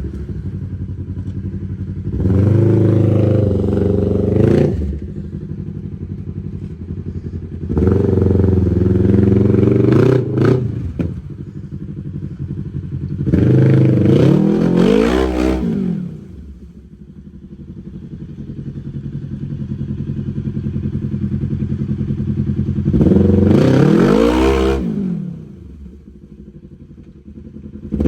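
Side-by-side UTV engine running on the trail, revved up hard four times in bursts of a few seconds, the pitch falling back after each, with a lower steady drone in between.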